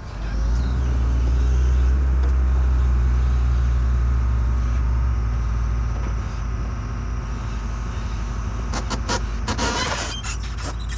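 A vehicle engine running steadily, loud at first and easing off after about five seconds. Near the end there is a short burst of hiss and a few sharp clicks.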